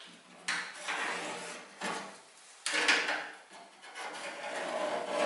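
Sheet-metal repair panel being pushed and slid into place for a trial fit, scraping and rubbing against the metal edges of the cut-out in a series of irregular bursts, the loudest starting sharply about two and a half seconds in.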